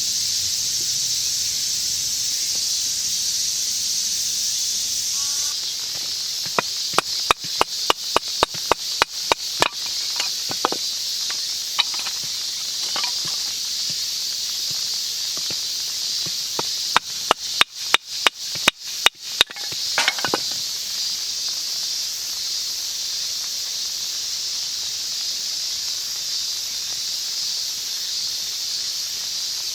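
Two runs of quick, sharp knocks, about three to four a second, over a steady high hiss.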